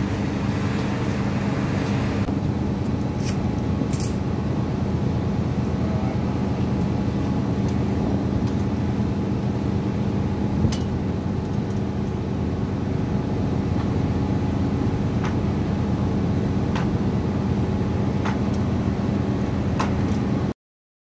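Crane engine running steadily with a constant low hum while it lowers a cut concrete beam section, a few faint clicks over it; the sound cuts off suddenly near the end.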